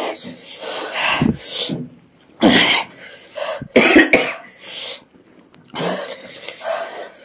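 Harsh coughing and throat clearing in several short bursts, the loudest about two and a half and four seconds in: a reaction to the burn of an extremely spicy chip.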